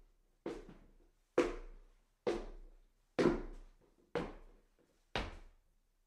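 Footsteps walking up a staircase: six evenly paced steps, a little under one a second, each a sharp knock that dies away quickly.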